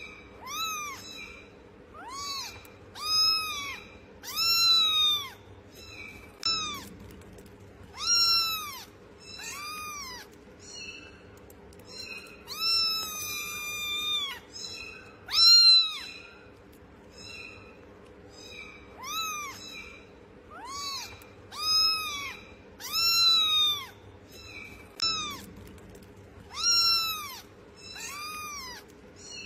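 A young kitten meowing over and over: high-pitched mews, each under a second, with short gaps between them, and one drawn-out mew about halfway through.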